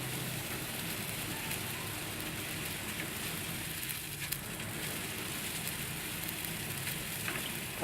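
Pot of water simmering on a low stove flame: a steady hiss with a faint, fine crackle of small bubbles.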